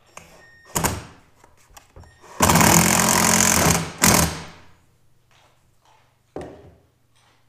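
Cordless drill running under load against the wall of a plastic bucket: a loud steady run of about a second and a half, then a short second burst. Short knocks and handling sounds come before and after it, with one sharp knock near the end.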